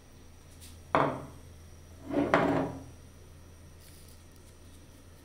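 Two short kitchen handling sounds about a second apart, a knock and then a longer, louder knocking scrape, as a wooden spoon and the citric acid container are handled at the jam pot.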